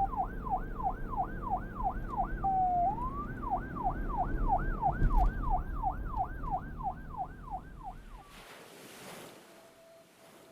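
Emergency vehicle siren on a fast yelp, a falling sweep about three times a second, with a brief held tone near the start before it picks up again. It runs over a low traffic rumble and cuts off abruptly about eight seconds in, leaving a quieter hiss.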